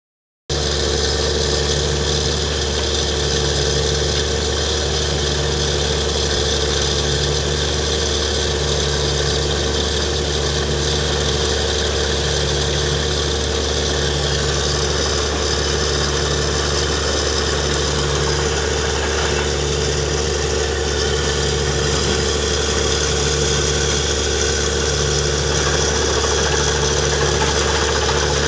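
Truck-mounted borewell drilling rig running steadily, its engine and drilling machinery droning loudly over a rush of air and water blowing out of the bore. A low pulse repeats about every second and a half.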